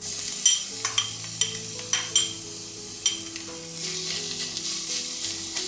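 Grated garlic sizzling in hot oil among frying onions in a stainless steel pan. A metal slotted spoon clinks against the pan about six times in the first three seconds as the garlic is stirred in.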